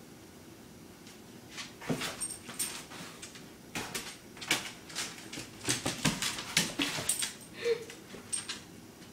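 Dogs' claws clicking and scrabbling irregularly on a ceramic tile floor as they dart after a laser pointer dot, starting about a second and a half in. A short whimper is heard near the end.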